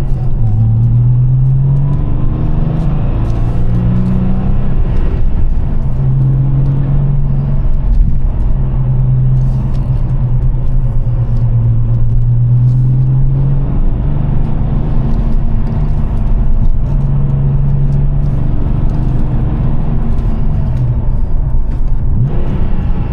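Inside the cabin, the 3.6-litre air-cooled flat-six of a 1997 Porsche 911 Carrera 4S (993) with the factory Motor Sound Package, driven hard. The engine note rises and drops several times and holds a steady pitch for several seconds near the middle.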